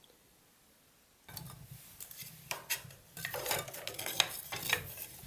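Wood stove fire burning with irregular sharp crackles and clinks over a low steady rumble. It starts about a second in, after near silence.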